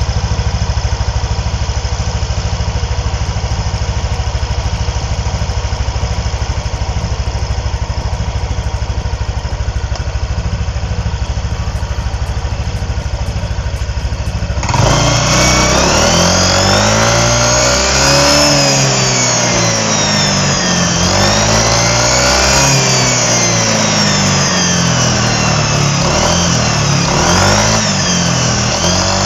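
Yamaha NMAX scooter's single-cylinder engine idling steadily, then blipped up and down repeatedly from about halfway. With each rev a high whistle rises and falls: an angled metal plate set in the radiator fan's airflow makes a turbo-like whistle.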